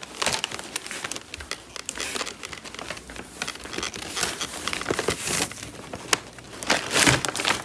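Plastic and paper shopping bags rustling and crinkling as they are handled, in irregular crackles that grow louder midway and again near the end.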